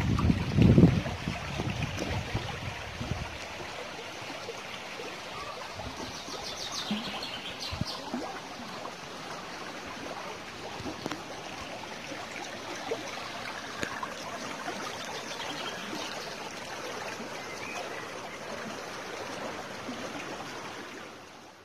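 Running water of a small stream: a steady rushing and trickling, with a few short bird chirps about six to eight seconds in. A low rumble sits under it for the first three seconds, and the sound fades out at the very end.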